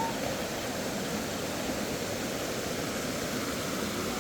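Steady rushing of a flowing stream, with no distinct events.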